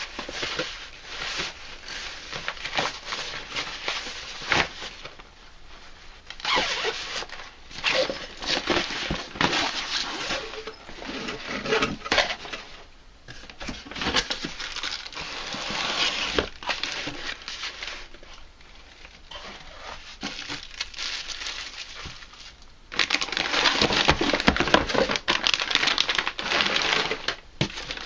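Hands handling packaging: a fabric tool bag rustling, then plastic bags crinkling and cardboard boxes scraping and shifting as items are lifted out of a carton. It comes in irregular bursts with short quieter gaps, busiest near the end.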